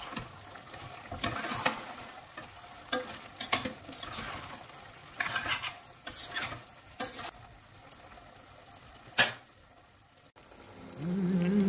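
Metal spoon stirring thick vegetable curry in a stainless steel pot, with irregular scrapes and clinks against the pot, then one sharp clink about nine seconds in. Music begins just before the end.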